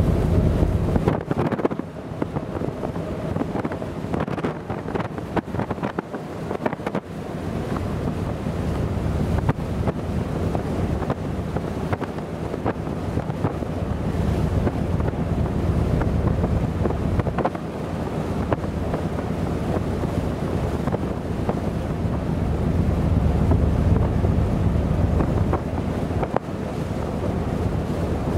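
Strong wind buffeting the microphone in gusts, a heavy low rumble over the wash of a choppy, whitecapped sea.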